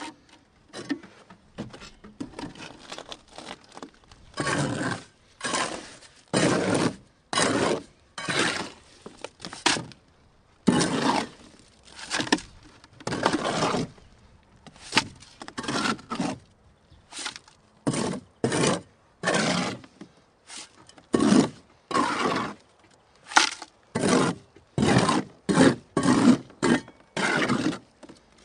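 A trowel scraping and scooping wet concrete and tipping it into a bucket, in a long run of short gritty strokes, roughly one a second.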